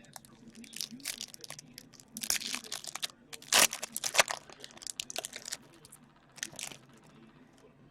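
Hockey card pack wrappers being torn open and crinkled: a run of irregular crackling rips, loudest about two and a half and three and a half seconds in, tailing off near the end.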